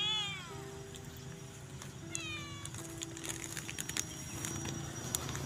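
Street cats meowing: one loud meow right at the start and a second about two seconds in, each falling in pitch. Scattered light clicks follow from about three seconds in.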